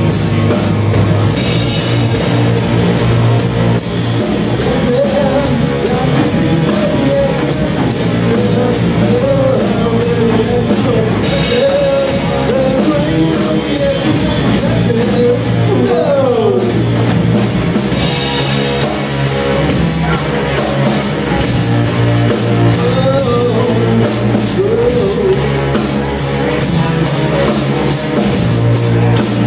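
Live rock band playing loud: electric guitar, bass guitar and drum kit, with a wavering lead line over steady drums. About halfway through, a note slides sharply down in pitch.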